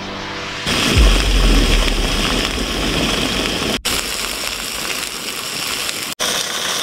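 Slices of pork loin sizzling in hot oil in a frying pan, a steady crackling hiss, with a brief low rumble about a second in. Background music cuts off just before the sizzling starts.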